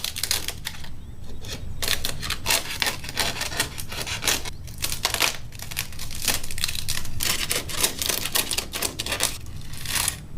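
Papery outer envelope of a wasp nest being torn and peeled apart by hand, a dense, irregular dry crackling and crinkling.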